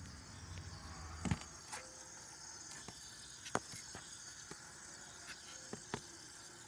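A low hum from a switched-off 2015 Honda Civic cuts out with a sharp click about a second in. A handful of irregular sharp clicks follow over a faint hiss.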